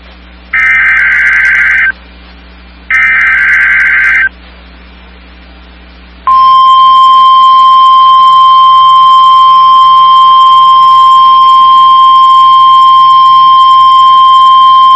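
NOAA Weather Radio weekly test signal. Two bursts of SAME digital header data come first, each about a second and a half long with a short pause between them. About two seconds later the 1050 Hz tone alert begins: one loud steady tone held for about nine seconds that cuts off near the end.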